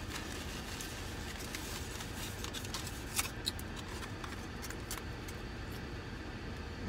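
Aluminium foil wrapped around a taco crinkling and crackling as it is handled and peeled back, in a few sharp crinkles about halfway through, over a steady low hum.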